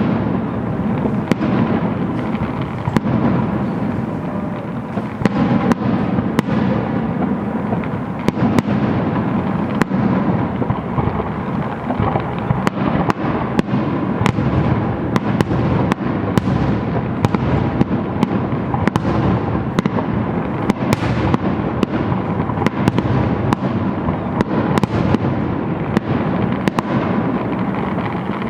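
Fireworks display: a dense, unbroken barrage of shell bursts, bangs following one another several times a second over a constant rumble and crackle.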